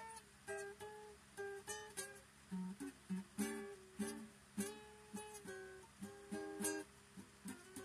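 Solo acoustic guitar playing an instrumental swing and blues rag, with single notes and short chords plucked in quick succession.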